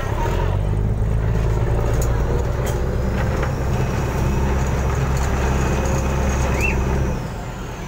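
Chao Phraya Express boat's diesel engine running hard with a steady low drone, then easing off sharply about seven seconds in. A short high chirp comes just before the drop.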